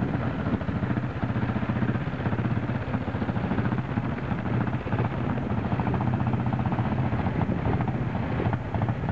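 Vintage motorcycle engine idling steadily with a fast, even beat.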